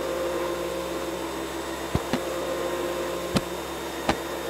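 Cartoon upright vacuum cleaner running with a steady whirring hum, with a few sharp knocks about two seconds in and near the end as books are put back onto a wooden shelf.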